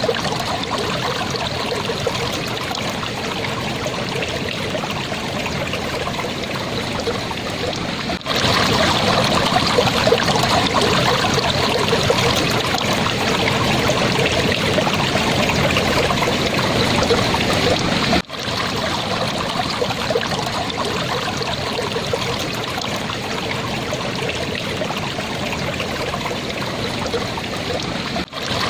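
Clear, shallow stream trickling and babbling steadily. The flow briefly drops out twice and is louder between those two breaks.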